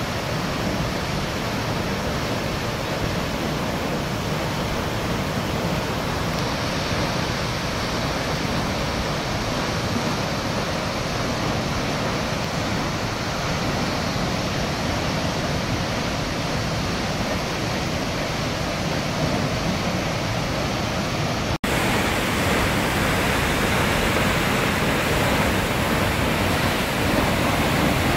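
Steady rush of a tall waterfall plunging into its pool. About three-quarters of the way through the sound breaks off for an instant and comes back a little louder and brighter.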